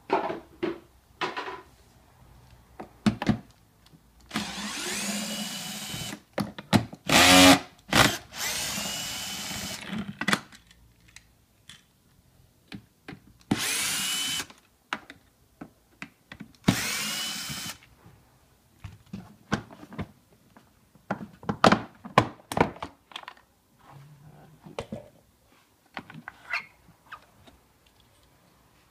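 Cordless drill-driver running in about five short bursts as it works the screws of a plastic machine housing, its motor pitch rising and falling with each pull of the trigger. Short clicks and knocks of handled plastic parts come between and after the bursts.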